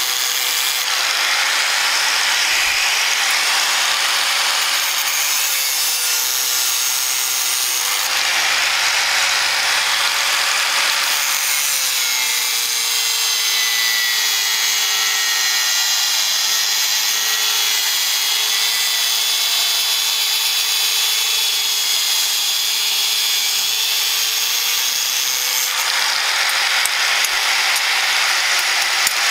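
Electric angle grinder with a thin cutoff disc running steadily, cutting into a steel blade blank made from a motorcycle disc brake rotor. The motor's whine sags and recovers in pitch as the disc bites, and the harsh cutting hiss swells and eases over several passes.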